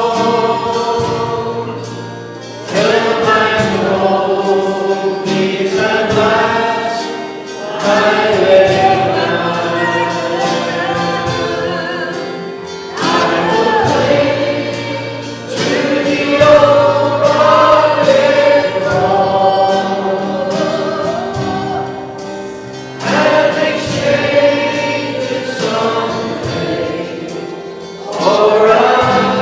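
A slow hymn sung by many voices together, in long held phrases that begin again about every five seconds.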